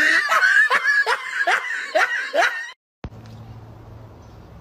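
High-pitched giggling: a quick run of short rising squeals, about two to three a second, that cuts off suddenly. After a brief gap a faint steady low hum follows.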